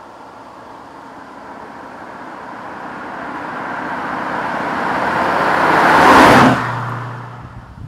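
1984 Aston Martin Lagonda with its V8 driving past: engine and tyre noise growing steadily louder as it approaches, loudest about six seconds in as it goes by, then dropping off sharply to a low hum.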